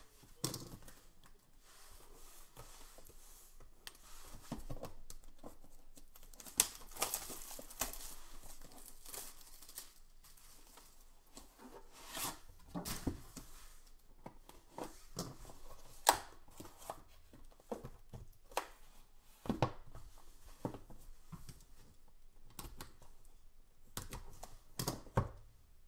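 Plastic shrink-wrap being torn and crinkled off a sealed trading-card box, with scattered sharp taps and knocks of cardboard boxes being handled.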